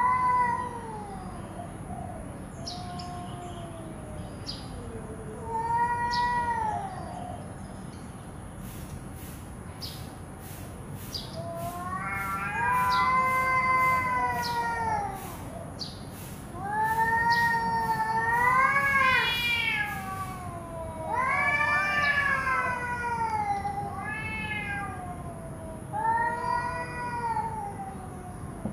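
Two domestic cats yowling at each other in an aggressive standoff: a series of long, wavering, drawn-out cries that rise and fall in pitch. The cries come closer together and louder in the middle, the threat calls that come before a cat fight.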